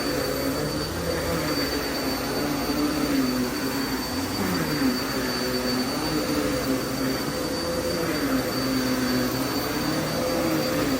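Vacuum cleaner running steadily, its motor hum wavering up and down in pitch over a steady rushing noise, with a thin high whine.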